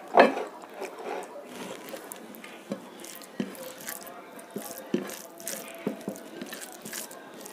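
Fingers mixing rice with dahi potol (pointed gourd in yogurt gravy) on a plate: irregular small wet squishes and clicks. There is a louder knock right at the start.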